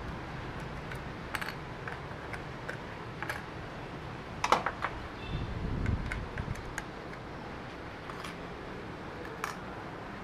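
Small sharp clicks and taps of a screwdriver and fingers on a laptop motherboard as the processor socket is unlocked and the CPU is lifted out, with a louder cluster of clicks about halfway through. A steady low hum runs underneath.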